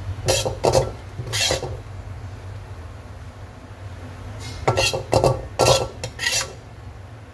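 Metal spatula scraping and clinking against a metal wok and plate while scooping food out of the pan. The strokes come in two groups, a few near the start and a quicker run of several from about four and a half to six and a half seconds in, over a steady low hum.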